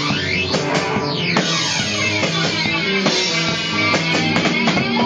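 Rock music with guitar and drums keeping a steady beat.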